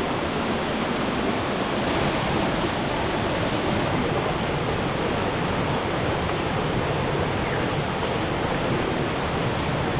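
Steady, loud rush of fast-flowing water from a mountain river and waterfall.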